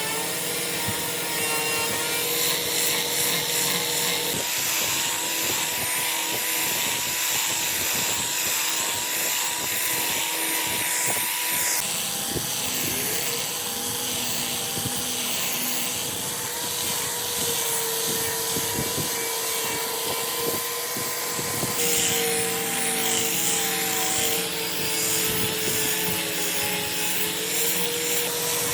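An electric power tool's motor whining as it cuts or sands wood, its pitch wavering with the load over a steady hiss of abrasion. The sound changes abruptly twice, about twelve and twenty-two seconds in.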